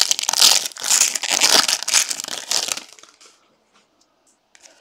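Crinkly wrapper of a jumbo baseball card pack rustling as it is opened, stopping about three seconds in, followed by a few faint ticks of cards being handled.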